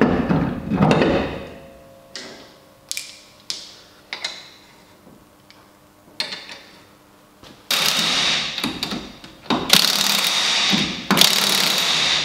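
A car wheel is lifted onto its hub with knocks and scrapes, followed by a few short clicks as the wheel nuts go on. Then three loud stretches of ratcheting, each about a second and a half long, come in the second half as the wheel nuts are run up.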